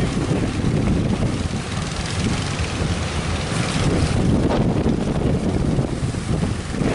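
Strong wind buffeting the microphone over breaking surf, with a brighter rush a little past halfway.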